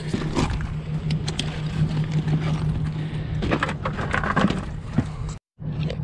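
Rummaging in a tool bag for a multimeter, with scattered clicks and rustles, over a steady low machine hum from rooftop HVAC equipment.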